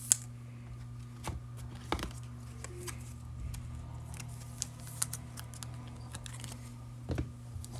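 Faint rustling and scattered light clicks of trading cards and plastic card holders being handled, over a steady low hum.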